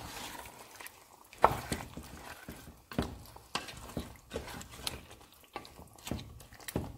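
Spatula stirring yogurt into a thick chicken curry in a non-stick pan: irregular scrapes and knocks of the spatula against the pan, the sharpest about one and a half seconds in.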